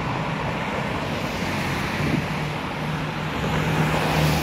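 Road traffic noise: cars driving past on a wide street, a steady rush with a low engine hum that comes up about two seconds in and again near the end.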